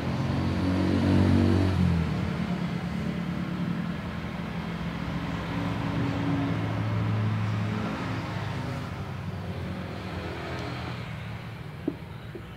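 A motor vehicle engine running, growing louder about a second in and again midway, then fading toward the end. A single sharp click comes shortly before the end.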